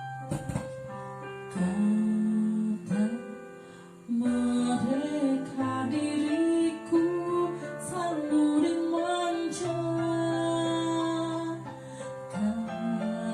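Acoustic guitar playing a slow ballad accompaniment, strummed and plucked chords carrying a melody, with a short drop in level about four seconds in before the playing picks up again.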